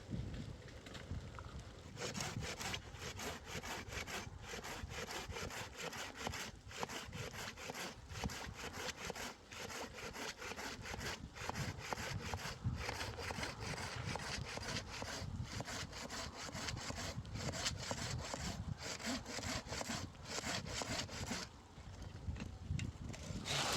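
A hand saw cutting through wood in steady back-and-forth strokes, pausing briefly near the end and then starting again.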